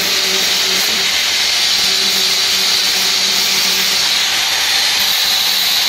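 Handheld angle grinder running steadily and grinding the end of a steel band saw blade flat: a steady hiss of the abrasive disc on metal over the motor's hum. The grinding squares the blade end and takes off rust and dirt to prepare it for butt welding.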